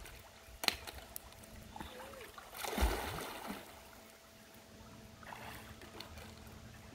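Water splashing in a swimming pool as a child plunges under and swims; one splash with a low thump about three seconds in is the loudest sound.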